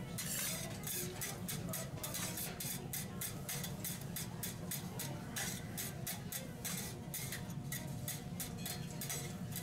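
Metal teppanyaki spatulas or a knife clacking and scraping on the steel griddle in a quick run of sharp strokes, about three to four a second, over a steady low hum.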